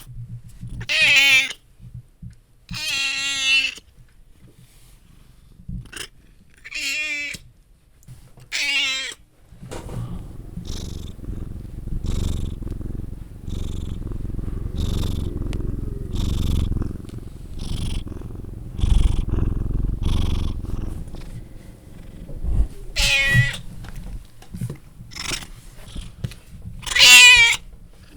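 Domestic cat meowing, five meows in the first nine seconds. It then purrs steadily for about twelve seconds, and meows twice more near the end.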